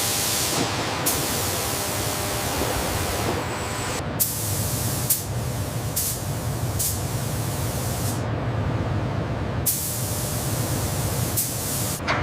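Steady hissing noise over a low hum, with the hiss cutting in and out abruptly several times.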